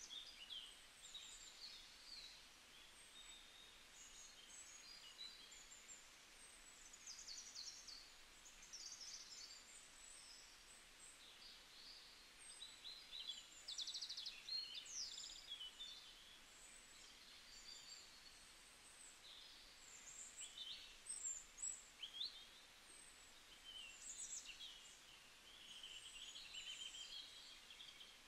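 Faint birdsong ambience: many short chirps and trills, scattered and overlapping, over a soft hiss.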